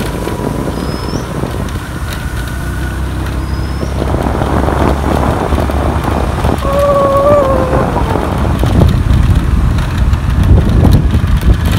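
Motorbike riding on a rough road: engine and wind rumble on the microphone, a steady low roar that grows a little louder toward the end. Two short high chirps come about a second and three and a half seconds in, and a short wavering tone about seven seconds in.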